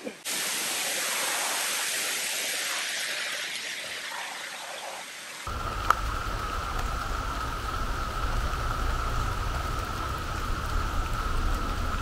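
Rain falling steadily on the forest foliage, an even hiss, for about five seconds; then, after a sudden change, a steady high-pitched drone over a low rumble, with one sharp click just after the change.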